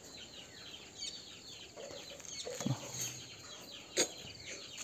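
Chickens: many quick, high, falling cheeps with a short low cluck about two and a half seconds in, and a sharp click about four seconds in.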